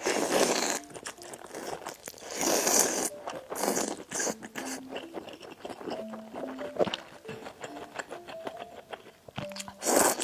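Close-up eating sounds: a person biting and chewing crunchy food, with a few loud crunchy bites, the first at the start, others around two and a half and three and a half seconds, and one near the end. Soft background music plays underneath.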